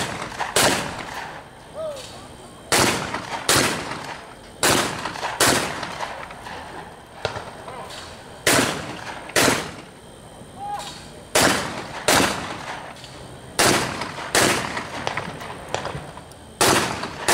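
12-gauge shotguns firing at skeet doubles: sharp shots in pairs less than a second apart, a new pair every two to three seconds as the shooters take turns.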